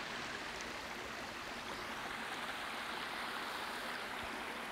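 Shallow creek running over flat rock ledges and a small cascade: a steady rush of water.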